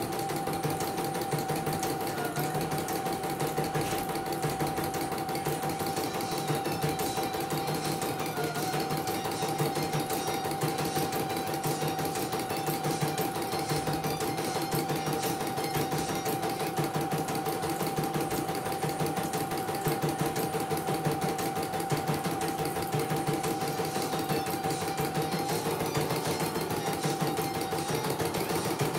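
CNY portable computerized embroidery machine stitching a design: a steady motor hum with a fast, even needle clatter. The pitch dips briefly twice and rises slightly near the end.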